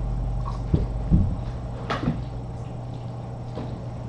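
A few soft thumps and a light knock from movement in the room, over a steady low electrical hum.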